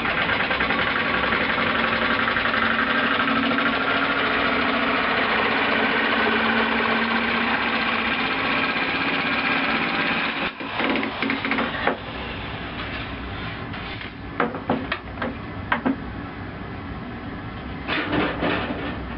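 A small electric power tool running steadily for about ten seconds, then stopping abruptly, followed by several sharp clanks and taps.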